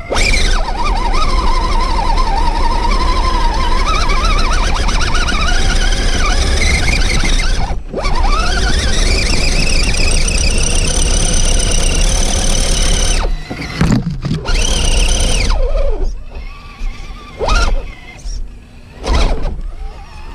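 Electric motor and geartrain of a 1/10-scale RC rock crawler whining under throttle on a dirt climb, the pitch wandering up and down with speed. It cuts out briefly about eight seconds in and comes back rising in pitch. From about thirteen seconds on it comes only in short bursts.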